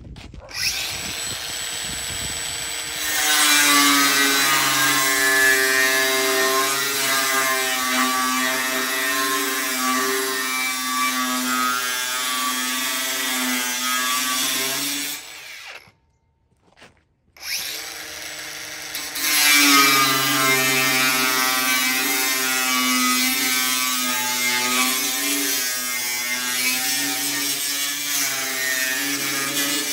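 Bosch GWS 18V-15 PSC cordless angle grinder spinning up and running free for a couple of seconds, then getting louder as its disc grinds into a steel I-beam, throwing sparks. It stops about halfway through, starts again, and after another short free spin cuts down into the beam's steel flange.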